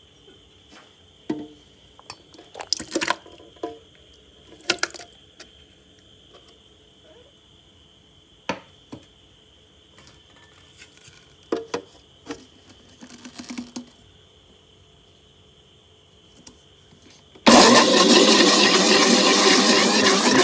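Thawed strawberries dropped and tipped into an empty plastic blender jar, a scattering of soft knocks and clatters. About 17 seconds in, the blender starts suddenly and runs loud and steady at full speed, puréeing the strawberries.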